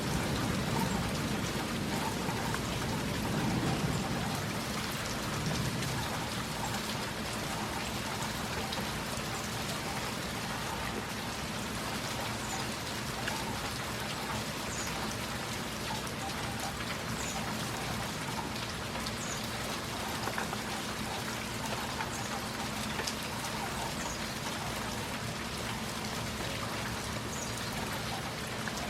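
Steady rain falling, with the tail of a rumble of thunder dying away over the first few seconds.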